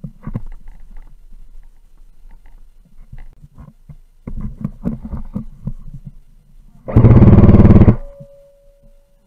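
Scattered light clicks and knocks, then about a second in from the seventh second a very loud, rapid full-auto burst from a close airsoft M4 rifle, a fast even buzz of shots that cuts off suddenly.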